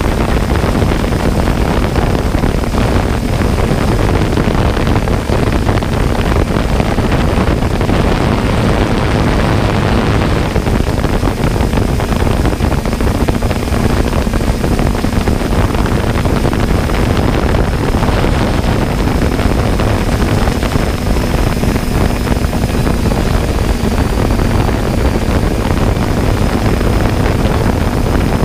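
Steady buzz of a small camera drone's electric motors and propellers, with a low hum and a thin high whine holding level under a noisy wash.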